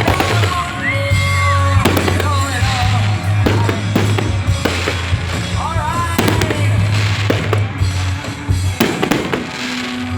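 Fireworks bursting in a rapid, irregular series of bangs, with music playing at the same time.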